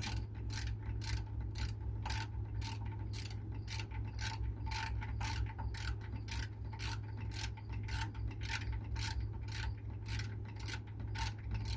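Ratchet wrench clicking at an even pace, about two or three clicks a second, as a bolt is turned out, over a steady low hum.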